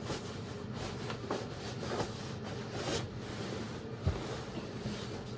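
Rustling of a thin cotton martial-arts gi being put on and adjusted: soft swishes of the fabric, with one low thump about four seconds in.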